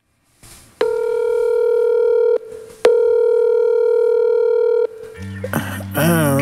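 Telephone ringing tone as heard by the caller: two long steady tones, each about two seconds, with a short gap between them. About five seconds in a beat with a deep bass comes in, with a wavering sung voice near the end.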